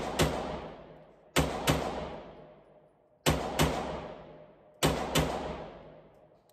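Semi-automatic carbine fired in double taps, four quick pairs of shots about a second and a half apart, each shot ringing out in the echo of an indoor range.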